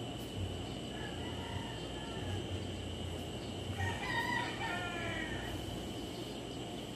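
A rooster crowing, loudest a little past halfway, with a fainter call earlier, over a steady high insect hum.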